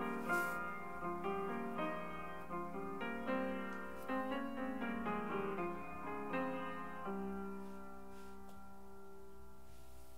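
Background piano music: a run of gentle notes, settling into one held chord about seven seconds in.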